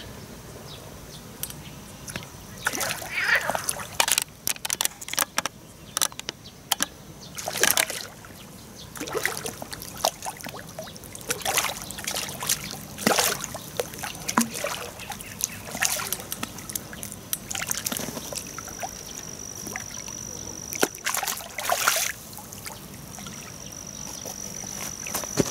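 Small hooked fish splashing and thrashing at the water surface again and again as it is played in on a pole rod. A thin, steady high tone comes in twice near the end.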